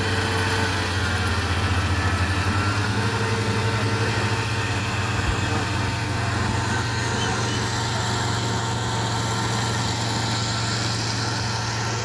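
Kubota SR55 Pro combine harvester running steadily, a strong deep hum under a dense, even hiss.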